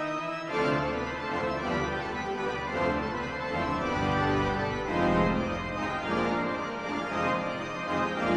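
Midmer-Losh pipe organ playing slow, sustained chords. A new chord sounds about half a second in, and deep bass notes join around the middle.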